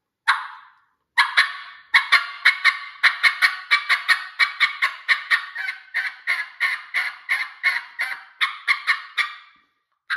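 Turkey mouth diaphragm call with red and green latex reeds, blown as hen turkey calling: one short note, then from about a second in a long fast run of short sharp calls, about four a second, that stops shortly before the end. The call has a clear front-end yelp breaking into a medium rasp.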